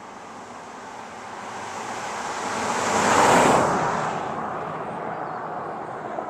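A vehicle passing by on the road, its tyre and engine noise swelling to a peak about three seconds in and then fading away.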